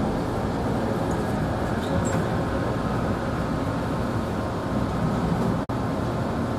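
Steady rumble inside a Yongin light-rail car, the Bombardier ART linear-motor train. It cuts out for an instant about five and a half seconds in.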